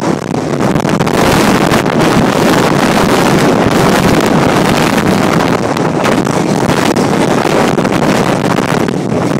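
Storm-force gusts of Hurricane Irene buffeting a phone's microphone: a loud, steady rush of wind noise that flickers with the gusts.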